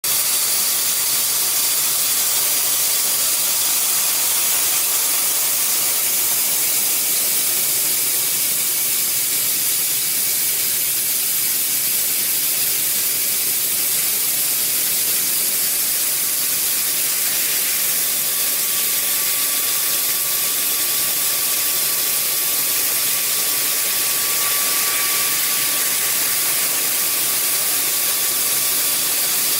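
A 20 kW fiber laser cutter cutting 50 mm aluminium plate: a steady, loud hiss of the gas jet blowing through the cut, with a faint thin whine joining in for several seconds past the middle.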